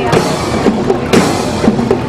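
Loud music with a drum-kit beat, a heavy hit about once a second, under a pitched melody.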